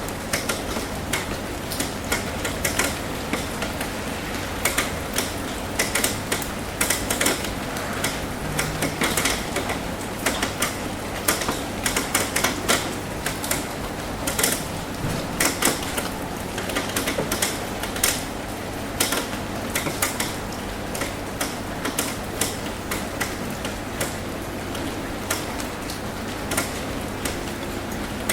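Rain tapping on a roof: irregular sharp drops, several a second, over a steady hiss of rainfall.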